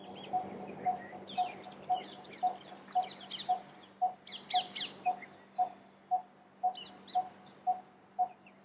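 Birds calling: one bird repeats a low, even note about twice a second while other birds chirp in quick high bursts. A faint steady hum runs underneath.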